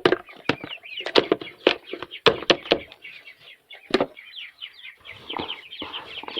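Chickens calling with quick, high chirps, densest near the end, over a run of sharp knocks in the first three seconds and one more knock about four seconds in.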